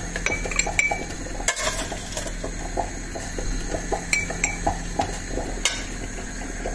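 Metal spoon clinking and tapping against the mouth of a glass jar while sliced jalapeño peppers are spooned in: irregular small clicks, a few of them ringing briefly.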